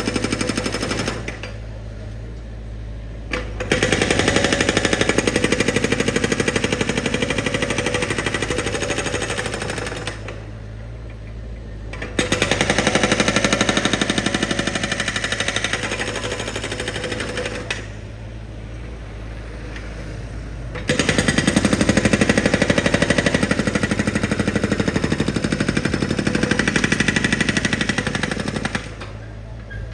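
A construction vehicle's percussive ground drill hammering in rapid strikes in four bursts of several seconds each, with its engine running steadily through the pauses between bursts.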